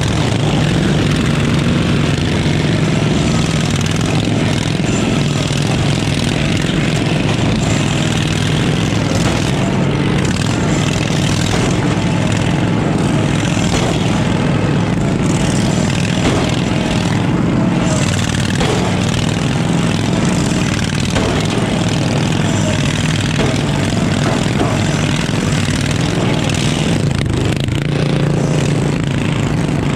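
Riding lawn mower engine running steadily and loud, heard close up from the driver's seat, as the modified derby mower drives across the arena.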